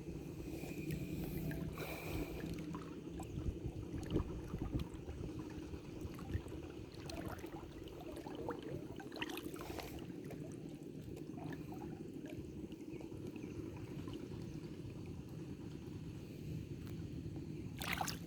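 River water running steadily with a low rushing sound, with scattered small clicks and splashes, and a faint low hum during the first couple of seconds.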